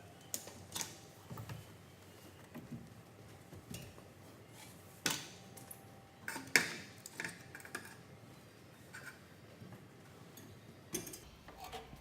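Scattered metallic clicks and clunks as the Icon active wheelchair's quick-release seat and frame are handled. The two loudest knocks come about five and six and a half seconds in.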